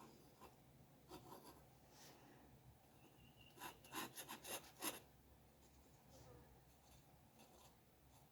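Faint scratching of a drawing tool on paper, short strokes with a quick run of louder strokes a few seconds in.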